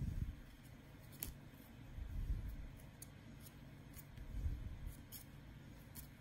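1993 Topps baseball cards being handled one by one, taken off a stack and dealt onto a pile. There is soft rustling from the handling about every two seconds, with a few light, sharp clicks of cardboard edges.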